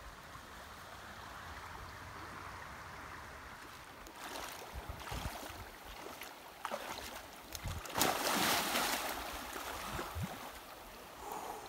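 A shallow river runs steadily over stones. About four seconds in, water sloshes around a person's legs as he wades, and a little after the middle comes the loudest part, a big splash as he plunges in to swim.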